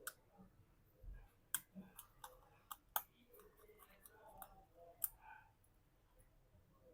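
Light, irregular clicks and taps of small metal repair tools and screws against an iPhone's frame as its internal screws are refitted, about a dozen sharp ticks over several seconds.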